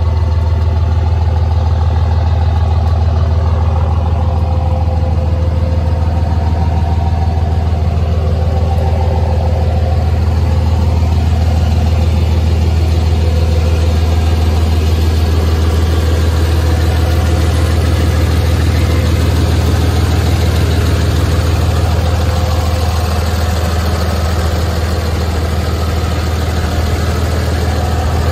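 2005 Ram 3500 dually pickup's engine idling steadily, a low even hum with no change in speed.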